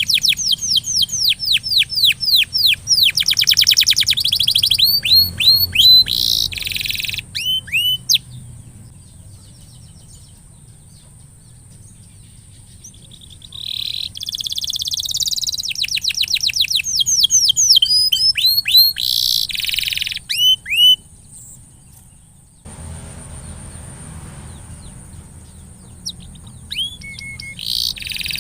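Domestic canary singing: fast trilled rolls of repeated downward-sweeping notes, in two long bouts separated by a pause of about five seconds, then softer calling near the end.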